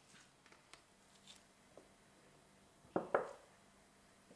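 Quiet handling of bread dough on a wooden worktop, with faint clicks and scrapes, then two sharp knocks in quick succession about three seconds in.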